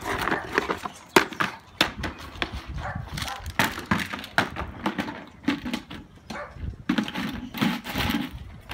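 Black plastic plant pot being knocked and scraped about on brick paving as a boxer dog noses and paws at it: a run of irregular knocks and scrapes, loudest just after the start and again about a second in.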